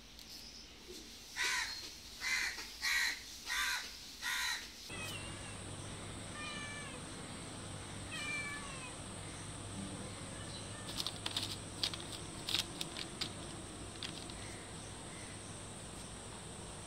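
A crow caws five times in quick succession. Then cats meow a few times, short, faint and falling in pitch, over a steady low hum, with a few sharp clicks later on.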